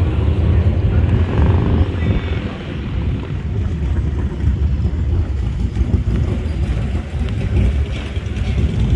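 Motorcycle engines running with a steady low rumble, with voices faintly beneath.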